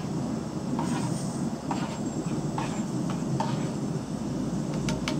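Camping gas stove burner running steadily under a stainless steel pot while a metal spoon stirs coffee in it, clinking lightly against the pot a few times. Near the end comes a quick run of sharp metal taps from the spoon on the pot.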